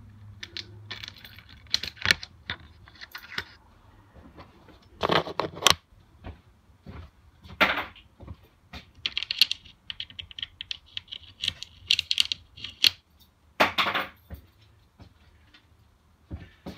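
Handling noise: scattered sharp clicks and metallic clinks, a run of quick rattling clicks in the middle, and a few louder rustling scrapes.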